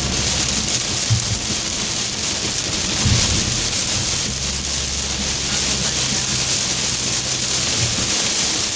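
Heavy rain pelting a moving car, heard from inside the cabin as a steady dense hiss over a low road rumble, with a few dull thumps.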